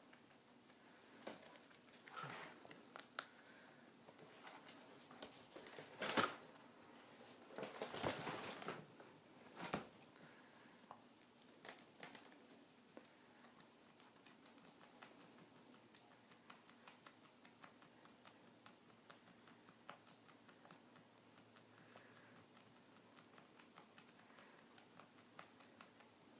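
English lop rabbit eating hay: a run of small, quick crunching clicks from chewing, with a few louder rustles of dry hay being pulled in the first half.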